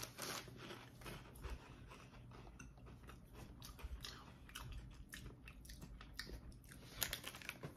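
Faint, irregular crunching of a man chewing Lay's Classic potato chips with his mouth close to the microphone.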